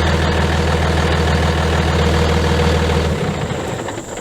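2001 Dodge Ram 3500's Cummins 5.9 L straight-six turbo diesel idling steadily, then switched off about three seconds in, its idle rumble cutting out.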